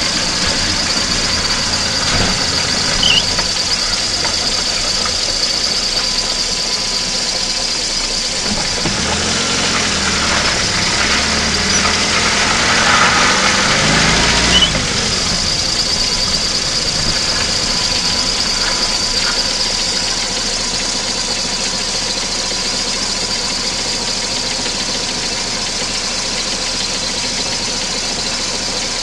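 VAZ-2109 engine running, heard from inside the engine bay as a steady mechanical hum. Between about 9 and 15 seconds in it grows louder and its pitch rises and falls, ending in a sharp click, then it settles back to a slightly quieter steady run.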